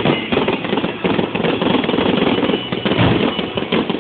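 Fireworks display: shells bursting in a loud, dense, continuous run of pops and crackles.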